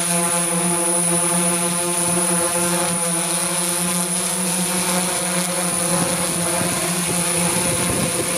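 Multirotor camera drone's propellers and motors humming steadily in flight, with a thin high whine above the hum.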